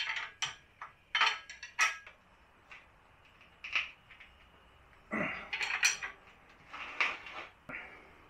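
Metal hand tools clinking and knocking against steel tie rod parts as the ends are snugged down: a scatter of sharp clinks, busiest about five and seven seconds in.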